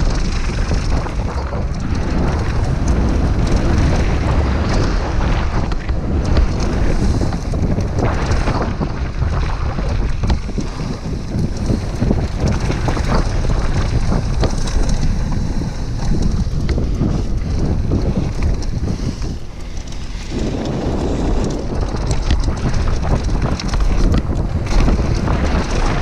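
Wind buffeting a GoPro Hero5 Black's microphone at downhill-riding speed, with knobby tyres rumbling over loose gravel and the Scott Gambler downhill bike clattering over the bumps. The rush dips briefly about twenty seconds in, then picks up again.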